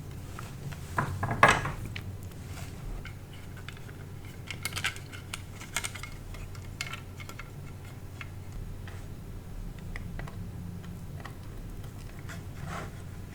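Small metallic clinks and taps of soldering tools and connector pins against a circuit board, with a louder knock about a second and a half in, over a low steady hum.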